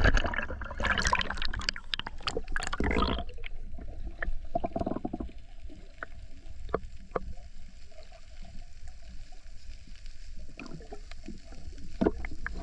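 Water splashing and churning as the camera goes under the surface for about three seconds. Then the muffled low rumble of the underwater microphone, with scattered sharp clicks.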